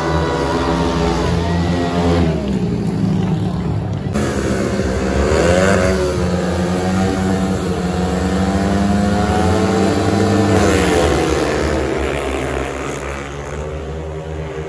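Several single-cylinder speedway motorcycles running together, their engines revving up and down in pitch and getting louder twice as they pass close, then fading as they pull away near the end.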